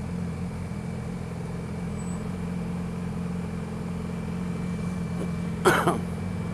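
2012 Yamaha R6's inline-four engine running at a steady engine speed while riding, its pitch holding level. A brief, sharp, loud sound cuts in once near the end.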